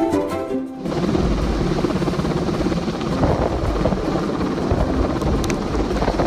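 Helicopter hovering low overhead, a steady dense rotor and engine noise with a deep flutter. Background music cuts off about a second in, where the helicopter sound takes over.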